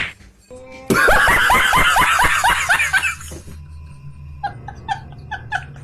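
A loud burst of laughter, a fast run of 'ha-ha' pulses falling in pitch for about two seconds. It is followed a little later by quieter, evenly spaced laughing pulses over a steady low hum.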